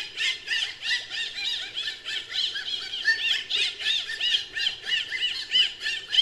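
Dolphin whistles used as a creature sound effect: a fast, unbroken chatter of high chirps, each rising and falling in pitch, several a second.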